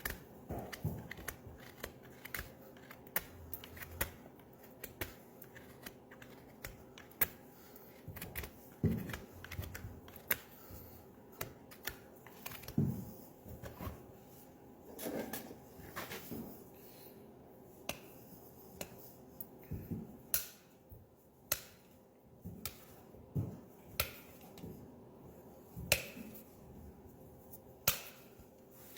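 Hoof-trimming tools cutting and paring a horse's hoof: irregular sharp snips and clicks, roughly one every second or two, some with a duller knock.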